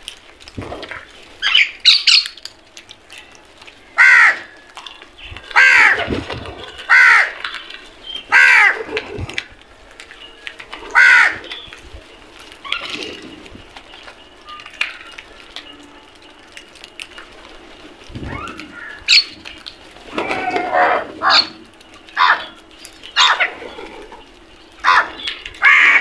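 A flock of house crows cawing: loud, harsh caws that bend down in pitch, coming one at a time every second or two. About three-quarters of the way through they crowd into a quick run of overlapping calls.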